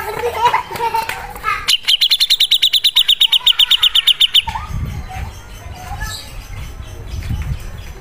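Grey-cheeked bulbul (cucak jenggot) singing. It gives warbling phrases, then a fast stuttering run of repeated notes at about ten a second for nearly three seconds. Softer calls follow over a low rumble.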